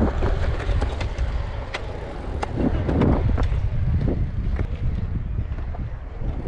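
Wind buffeting the microphone while a BMX bike rolls through a concrete skatepark bowl: a steady low rush of tyre and wind noise, with scattered sharp clicks and knocks from the bike.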